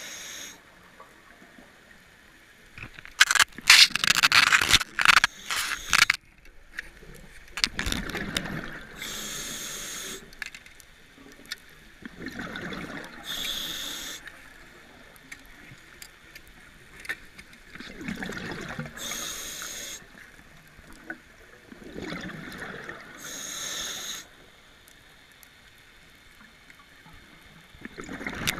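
A scuba diver's regulator breathing underwater: short high hissing inhalations alternate with bubbling exhalations, about every four to five seconds. A loud crackling burst of bubbles and rattling comes a few seconds in.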